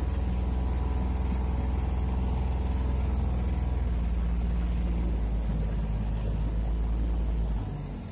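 Utility vehicle's engine running steadily as it drives, heard from inside the cab as a low drone. The engine note drops and quietens near the end.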